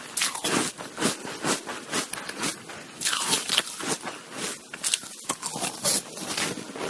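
Shaved ice being bitten and chewed close to the microphone: a run of irregular, crisp crunches, about two or three a second.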